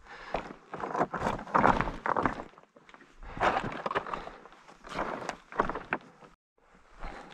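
Footsteps crunching down a steep slope of loose rock scree, a step every second or so, with stones clattering and knocking together underfoot.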